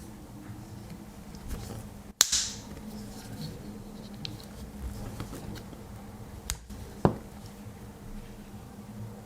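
A few sharp metallic clicks and a short scrape from a Swiss Army knife and a pull-through knife sharpener being handled: the loudest click and scrape come about two seconds in, two more clicks a little before and after seven seconds.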